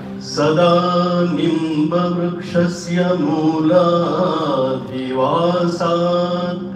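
A man chanting a devotional Sanskrit prayer sloka into a microphone in long, held, ornamented notes, with short breaks about two and five seconds in. A steady drone sounds underneath.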